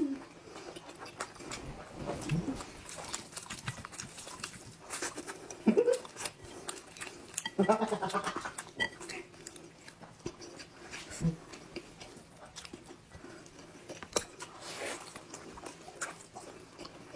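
Close-miked eating sounds: wet chewing, lip smacks and short throaty mouth noises, with a noisier slurp about eight seconds in as noodles are eaten.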